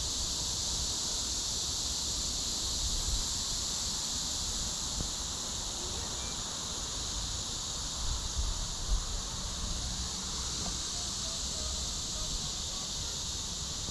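A steady, high-pitched chorus of insects buzzing without a break, with a faint low rumble underneath.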